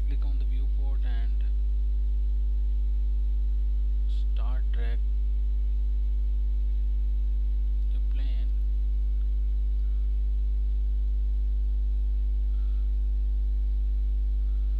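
Steady low electrical mains hum picked up in the recording, constant throughout, with a few brief faint voice sounds over it.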